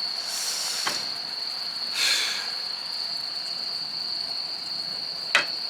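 Insects trilling steadily at one high pitch, with two short hissing sounds and a few light clicks over it.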